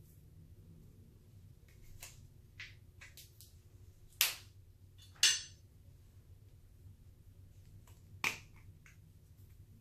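Clear slime being squeezed and worked by hand: scattered small clicks with three loud, sharp pops about four, five and eight seconds in.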